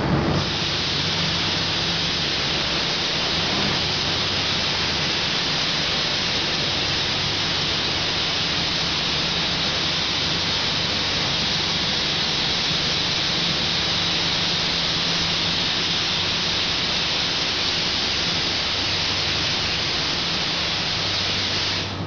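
Steady, even hiss with a faint low hum underneath, from a running steel melting furnace and foundry machinery. It starts suddenly and cuts off suddenly at the end.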